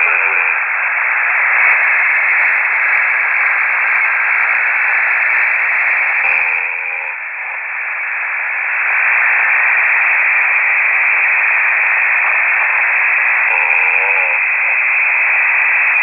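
Shortwave radio receiver static: a steady hiss confined to a narrow voice band. It dips briefly about seven seconds in, and two short warbling fragments come through, one just before the dip and one near the end.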